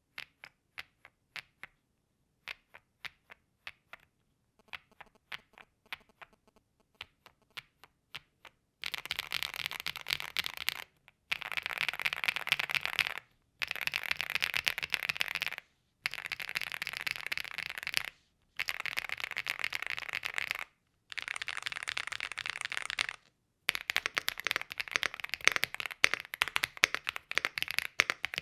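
Stock Rainy75 Pro mechanical keyboard with Kailh Cocoa switches being typed on: separate single keypresses for about the first nine seconds, then fast continuous typing in stretches of about two seconds with short pauses between them.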